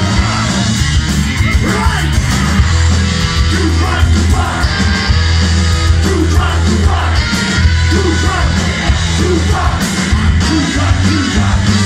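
Live punk rock band playing loud: electric guitar and drums driving on throughout, with a singer yelling the vocals into a microphone.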